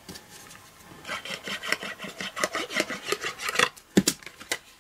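Glue stick rubbed rapidly back and forth over cardstock in a quick run of scraping strokes, followed by a single sharp click about four seconds in.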